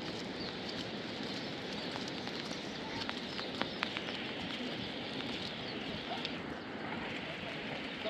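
Steady rain falling, with a few sharp ticks of drops about three to four seconds in and faint bird calls near the end.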